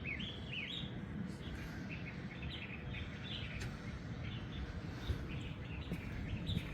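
Small birds chirping in quick, short repeated notes, some sliding down in pitch, over a steady low background rumble.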